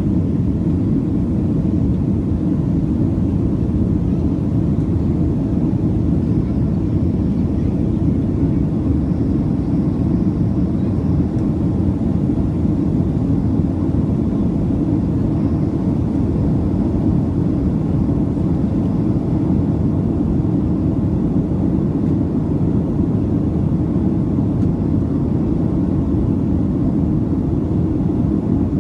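Steady low roar of a Southwest Boeing 737's engines and airflow, heard from inside the passenger cabin, holding even throughout.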